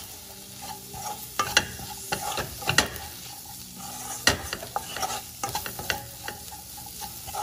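A spatula stirring and scraping onions, tomatoes and ground spices frying in a non-stick wok: a steady sizzle with irregular scrapes and knocks of the spatula against the pan. The spices are being cooked into the masala.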